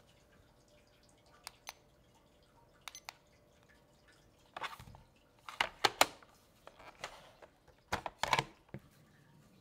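Stainless-steel and plastic kitchen scale being handled and taken apart: a few light clicks, then from about four and a half seconds in, three bursts of sharp knocks and clatter as its parts are moved and set down on the table.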